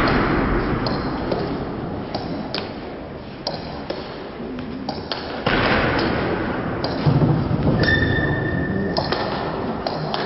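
Table tennis rally: the celluloid ball clicking off the bats and bouncing on the table, the strikes coming at a fairly even pace, often in quick pairs of bounce and hit.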